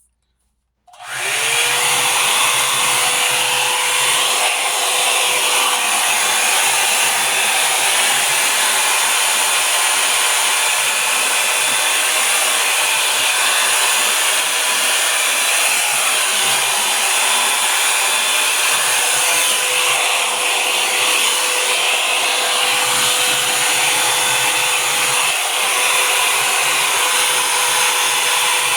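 Revlon blow dryer brush switched on about a second in, its pitch rising briefly as the motor spins up, then running steadily with a constant rush of air and a motor whine.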